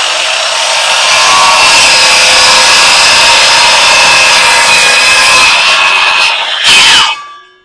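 RIDGID 18V brushless 7-1/4-inch cordless circular saw cutting through a 2x4: a steady high whine from the blade at full speed with loud sawing noise. Near the end there is a short, louder burst, then the motor winds down with a falling whine.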